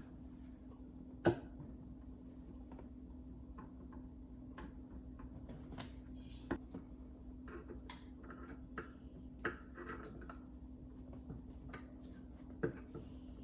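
Irregular small clicks and light knocks from dishwasher chopper-assembly parts being handled, with a sharper knock about a second in and another near the end. A steady low hum runs underneath.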